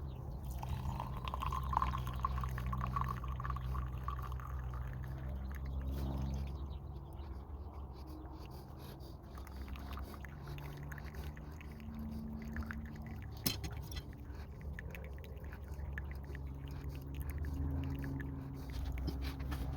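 Water poured into a pour-over coffee dripper for a few seconds, over a steady low hum.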